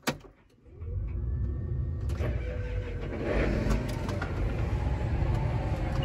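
John Deere tractor's diesel engine started with the key, heard from inside the cab: a click, then it catches about a second in and runs steadily.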